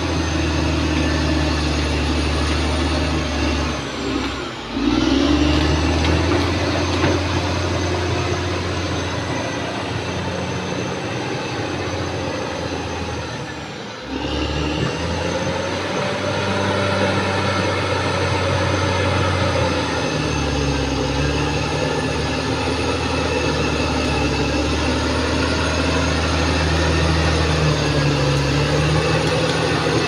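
Caterpillar D6R XL bulldozer's diesel engine running steadily. The engine note drops briefly twice, about four and about fourteen seconds in, and picks back up each time.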